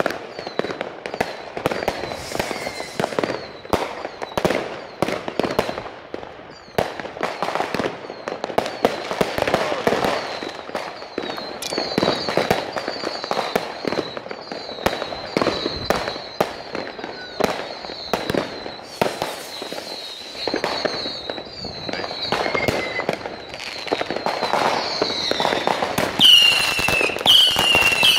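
Fireworks going off without a break: many overlapping bangs of firecrackers and shells over a constant crackle, with short high whistles. Near the end come a few falling whistles and the loudest bang.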